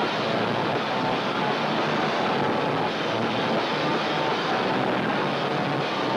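Rock band playing live at full volume, a dense, steady wall of distorted guitar and drums with no clear vocal line, on a lo-fi amateur recording.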